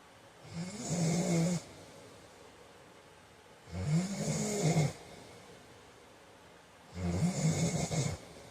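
A man snoring in his sleep: three loud, low snores about three seconds apart, each lasting about a second.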